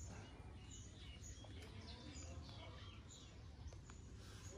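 Faint background birdsong: many short high chirps and quick falling whistles, over a steady low rumble.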